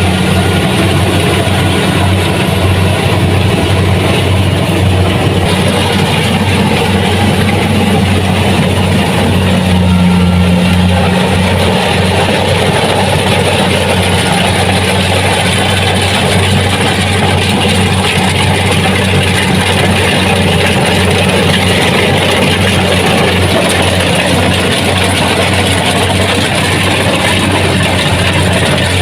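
Kubota DC70 Plus combine harvester running steadily: a loud, even engine drone with machinery noise over it, swelling slightly about ten seconds in.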